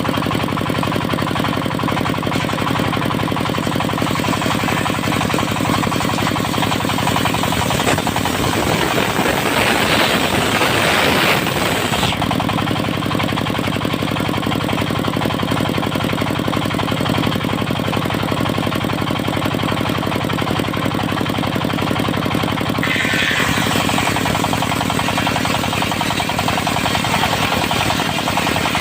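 Diesel engine driving a portable circular sawmill, running steadily with a rapid knocking beat. About eight seconds in a louder rushing, hissing sound builds for some four seconds and cuts off sharply, like the blade cutting through teak; a shorter, weaker one comes near the end.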